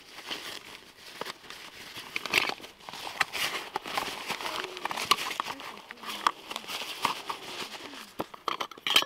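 Nylon stuff sack rustling and crinkling as it is untied and slid off a metal cook pot, with small clicks throughout and a sharper knock near the end.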